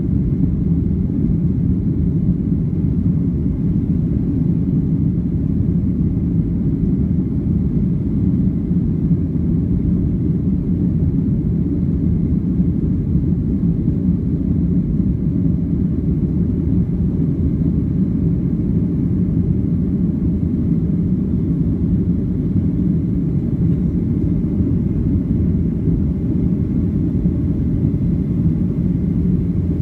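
Cabin noise inside a Boeing 757-300 climbing out just after takeoff: the jet engines and the rushing air make a steady, low rumble that does not change.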